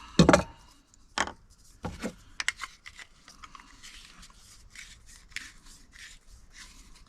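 A short length of water supply pipe being cut for a SharkBite valve fitting: a few knocks and clicks as the pipe and tool are handled, then a run of short rasping cutting strokes, about two or three a second.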